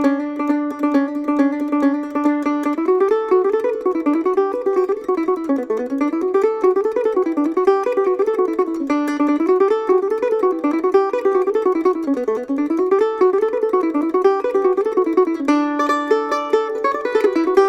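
Gold Tone GM-6+ mando-guitar (six-string guitar-mandolin) playing a fast riff. It opens with rapid repeated picking on one note, breaks into quick runs that rise and fall, and returns to the fast repeated note near the end.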